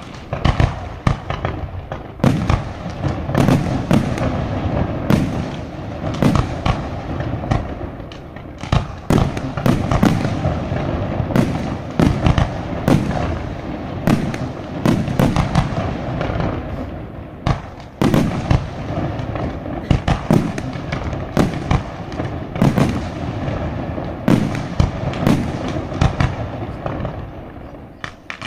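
Fireworks display: bangs and bursts follow one another several times a second almost without pause, with a few louder reports standing out.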